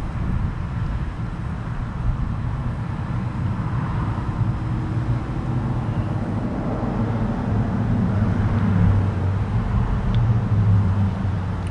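Road traffic noise, with a vehicle's engine hum that builds up in the second half.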